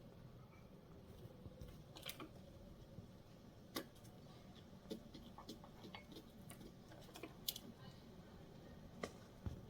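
Faint scattered clicks and taps, about half a dozen, over near-silent background.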